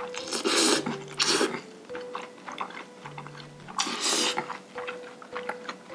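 Close-miked eating: three loud hissing slurps as food is sucked in off chopsticks, about half a second in, at about a second and a half, and about four seconds in, with small wet chewing clicks between them.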